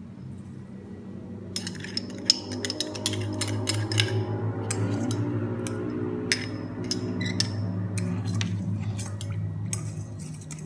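Metal spoon stirring sauce in a small stainless steel pot, clinking repeatedly against the sides from about a second and a half in, over a low steady hum.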